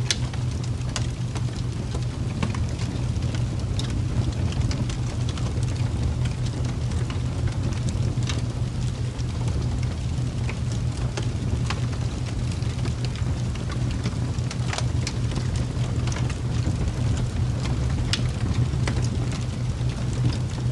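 Steady ambient noise bed with a constant low hum and scattered crackles and ticks throughout, of the kind used for rain or crackling-fire sleep sounds.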